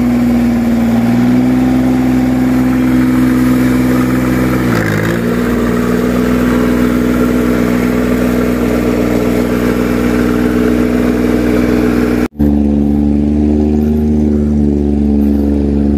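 Small dump carrier's diesel engine running steadily, its speed dipping briefly about five seconds in, then running on after a sudden break near the end.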